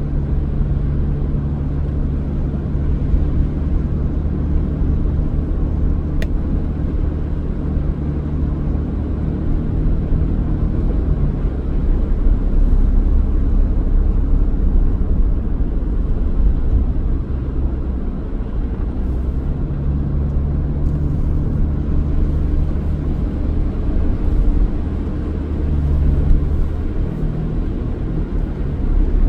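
Car driving along a road: steady low engine and road rumble, with the engine's hum rising and fading several times as the speed changes.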